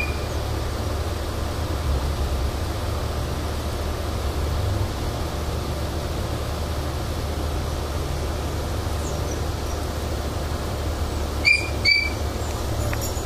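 A steady low hum, with two short, high, squeaky chirps in quick succession about a second and a half before the end.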